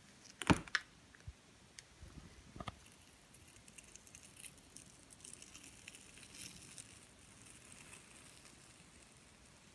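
Plastic icing bag of crushed Orbeez water beads squeezed through its nozzle into a plastic cupcake mould: faint wet squishing and crackling. A couple of light knocks about half a second in, and again about two and a half seconds in, are the loudest sounds.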